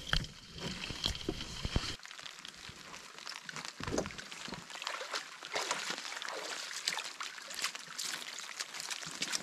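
Water sloshing and trickling, with many small irregular splashes and drips, around a canoe in the rain. A low rumble underneath cuts off suddenly about two seconds in.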